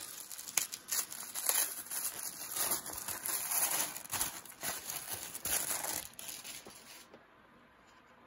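Tissue paper crinkling and rustling as hands unwrap it from around a baseball card; the crinkling stops about seven seconds in.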